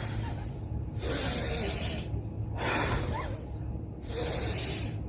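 A person blowing out hard through the mouth in two long hissing breaths, about a second each, with quieter breaths drawn in between, in a breathing exercise done by blowing against a tissue.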